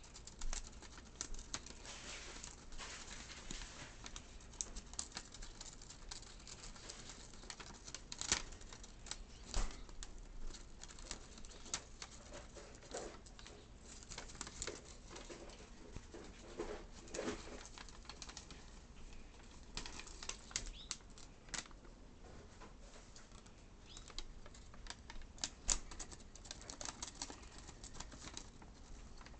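A Fischer's lovebird rustling, crinkling and tearing paper in its cage, with irregular crackles and sharp clicks that come in clusters.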